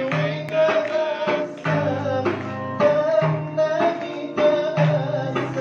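A man singing into a microphone, holding long wavering notes over backing music with a steady beat.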